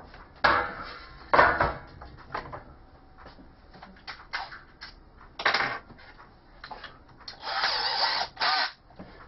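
Knocks and clatter as a number plate and tools are handled and set down on a metal drawer cart. Near the end comes a harsher noise lasting about a second as a cordless drill is picked up and readied.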